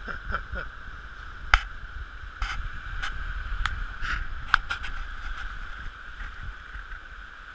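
River water rushing and splashing against an inflatable raft running a small rapid, over a steady low rumble, with several sharp knocks, the loudest about one and a half and four and a half seconds in.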